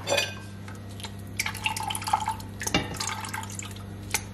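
Stock dripping and trickling from a mesh strainer back into a stainless stockpot, with scattered light clicks and scrapes as a wooden spoon presses the solids against the mesh. A steady low hum runs underneath.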